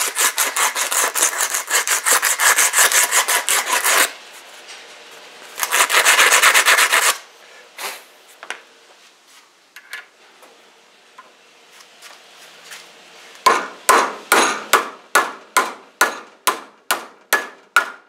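Sandpaper rubbed quickly back and forth on the steel shaft of a pool pump motor armature, taking off a burr so the new bearing will slide on. A second short bout of rubbing follows, and near the end comes a run of about a dozen slower, separate strokes.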